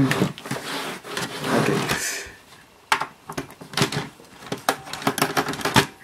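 Small screwdriver working screws out of a docking station's circuit board, with clicks and taps of the metal shield and plastic case being handled. A scraping rustle comes first, then a run of irregular sharp clicks from about three seconds in.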